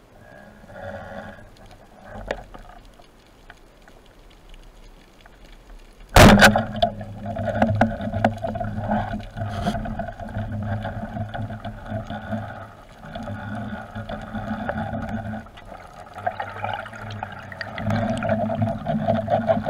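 Underwater speargun shot: a sudden sharp crack about six seconds in. It is followed by a long, uneven rush of water noise with short pauses as the diver handles the speared catch and swims up.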